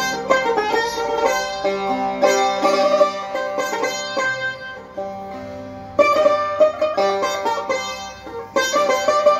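Persian tar made by Samad Saberi, played solo with a plectrum: a melody of quick plucked notes. The notes thin out and fade about five seconds in, then a hard stroke about six seconds in starts fast plucking again.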